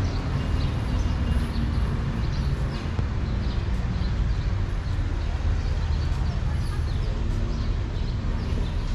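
Street ambience: a steady low rumble of traffic, with voices in the background and scattered short bird chirps.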